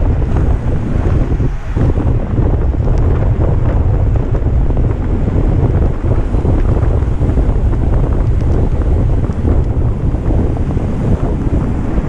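Strong, steady wind buffeting the microphone of a camera riding along at road-race speed on a bicycle, a loud low rumble.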